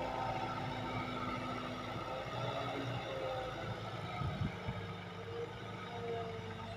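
Heavy diesel machinery engine running steadily, its pitch dipping and wandering with changing load, with a few short knocks about two thirds of the way in.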